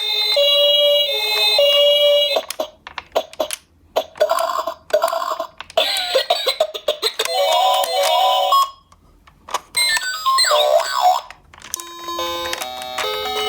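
Toy ambulance electronic sirens going off one after another: a two-tone hi-lo siren at first, then clicks and short chirping tones with brief pauses, a wailing siren about ten seconds in, and a quick beeping electronic tune near the end.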